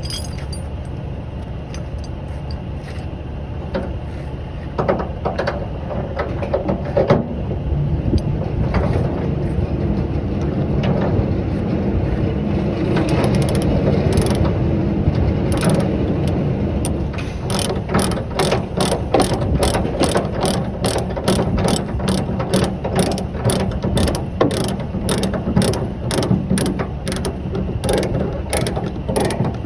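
Ratchet chain binder being worked to tighten a tie-down chain, its pawl clicking over a steady low rumble. The clicks are scattered at first, then settle into an even run of about two a second in the second half as the chain's slack is taken up.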